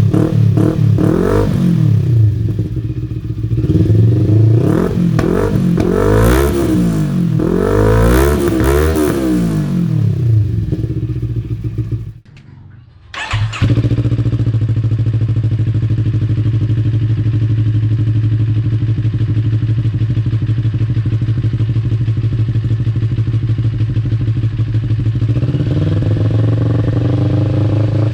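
CFMoto NK400's parallel-twin engine breathing through an aftermarket Akrapovic slip-on canister and twisted-loop mid pipe, revved in several rising and falling blips. After a brief break it settles into a steady idle.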